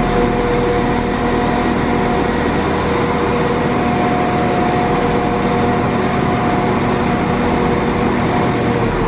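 Passenger train running, a steady engine hum over a constant rumble.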